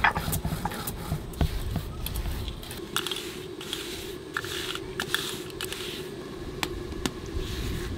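Fingers sweeping and gathering dry ground spice powder across a rough stone grinding slab: soft scraping with scattered light clicks.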